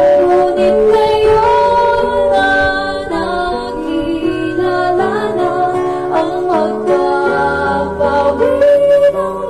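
Two women singing a song together, with the voices gliding between held notes over steady instrumental backing.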